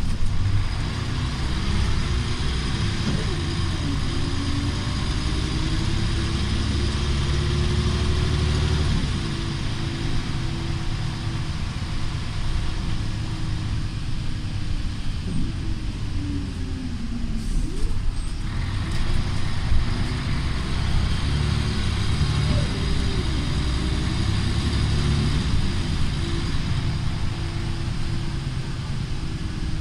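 Volvo B10BLE single-deck bus's engine and drivetrain heard from inside the saloon while under way. The engine note rises and falls through several gear changes, easing off about halfway through and then pulling away again, over steady road noise.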